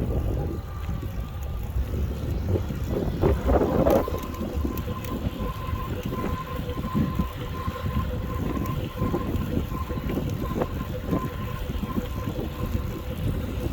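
Wind buffeting the microphone while riding a Nanrobot Lightning 2.0 electric scooter at speed, a steady rushing rumble. A thin steady whine comes in about four seconds in and holds.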